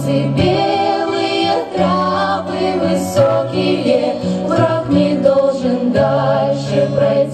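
Women's vocal ensemble singing in harmony through a PA, over a recorded backing track with a bass line that changes note every second or so.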